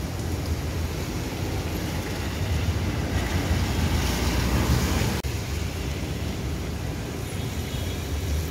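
Traffic on a wet road in drizzle: a steady low rumble, with a taxi's tyres hissing on the wet tarmac as it drives past about three to five seconds in. The sound breaks off abruptly a little after five seconds, and the low rumble carries on.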